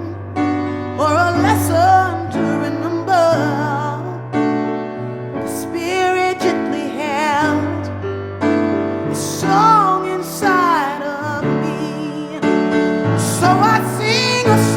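Background music: a gospel-style song with piano or keyboard chords under a wavering melodic line.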